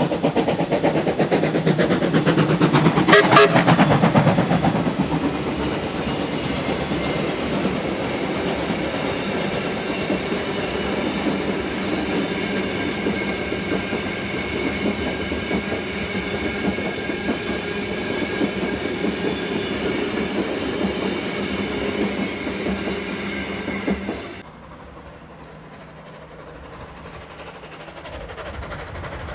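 A BB18¼ class steam locomotive runs past through a station, loudest about three seconds in as the engine goes by, followed by a long steady rush of the carriages rolling past. After about 24 seconds it cuts off suddenly to a much fainter rumble that slowly grows louder.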